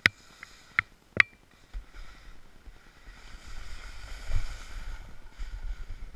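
Snowboard sliding and carving through snow, a scraping hiss with a low rumble that swells and is loudest a little past four seconds. Three sharp clicks come in the first second and a half.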